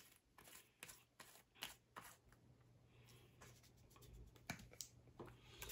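Near silence broken by faint, scattered clicks and rustles of small items and packaging being handled.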